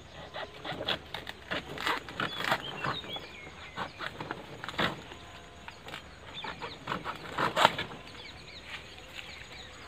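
A banana leaf being pulled and cut from the plant: the big leaves rustle and crackle, with irregular sharp snaps and cracks from the stalk and leaf blade. The loudest crack comes a little after seven and a half seconds in. A bird chirps briefly a couple of times.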